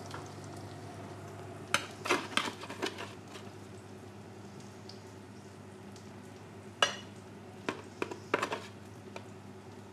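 Metal slotted spatula scraping and clinking against a baking tray and a ceramic plate as roast potato wedges are lifted across, in two clusters of sharp clicks about two seconds in and again from about seven to eight and a half seconds. Underneath is a steady low hum with the faint sizzle of bean burgers frying in a pan.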